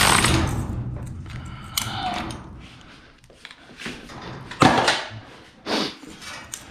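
A cordless ratchet with a 9/16 socket runs briefly, tightening the nut on a garage door extension-spring pulley, then dies away. Several sharp metal clanks follow as tools are handled, the loudest about two-thirds of the way through.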